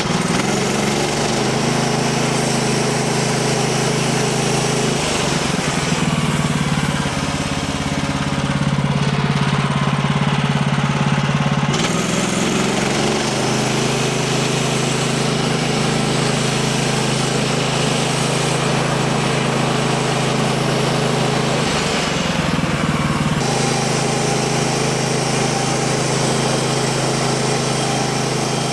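Gasoline engine of a Woodland Mills band sawmill running steadily while the blade cuts a board. Its note shifts and wavers for several seconds about five seconds in, and again briefly a little past twenty seconds in, as the cut loads it.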